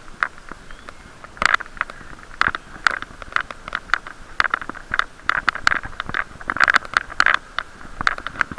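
Irregular knocks and rattles, several a second, muffled and boxy through a waterproof camera case on a moving bicycle, over a steady hiss.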